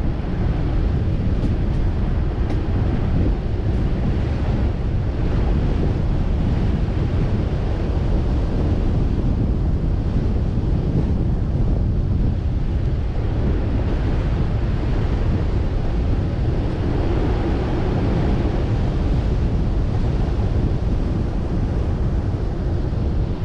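Steady wind buffeting the microphone of a camera on a vehicle driving a dirt road, with the low rumble of the moving vehicle beneath.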